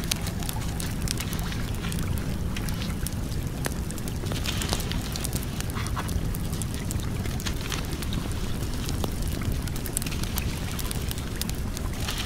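Wood fire crackling, with many irregular sharp pops and snaps over a steady low rushing sound.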